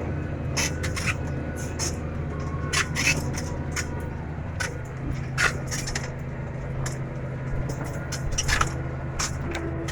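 Tractor engine running steadily, with frequent short irregular clicks and clanks on top.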